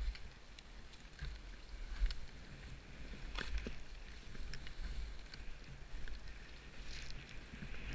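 Skis hissing and scraping over snow on a downhill run, with wind buffeting the microphone in uneven low gusts. A few short sharp ticks stand out, about three and a half seconds in and again near seven seconds.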